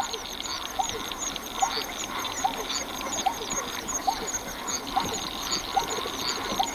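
Rain forest ambience: a dense, steady chorus of frogs and insects, with one short call repeating evenly about every 0.8 seconds.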